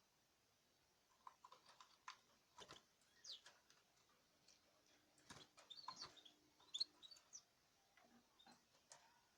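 Caged birds giving soft, short chirps, mixed with scattered small clicks and taps.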